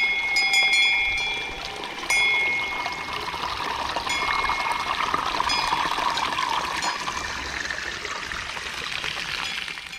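Cowbells clanking irregularly, a cluster of strikes in the first two seconds and a few fainter ones later, over the steady rush of a mountain stream.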